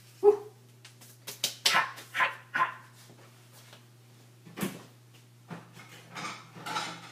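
A dog barking repeatedly in short, separate barks, over a steady low hum.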